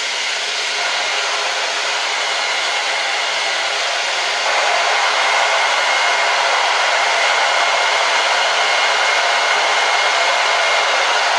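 Handheld hair dryer running steadily, drying a damp raccoon tail: a constant rush of air with a faint steady whine. It gets a little louder about four and a half seconds in.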